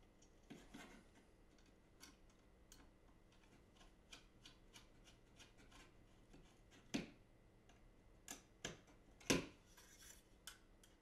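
Precision screwdriver turning a small retaining screw into a drive caddy: faint ticking and scraping, with a few louder sharp clicks and knocks in the second half as the caddy is handled.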